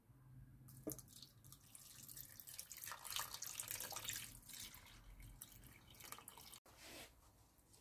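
Milk poured from a jug into a saucepan, a faint splashing pour that builds about two seconds in and tails off near the end.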